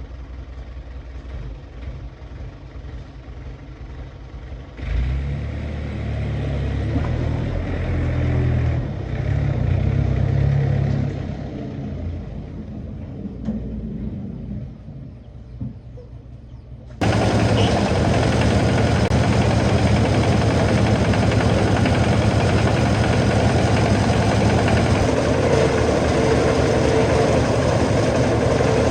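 A motor engine running steadily. About seventeen seconds in the sound abruptly jumps to a much louder, fuller steady machine noise.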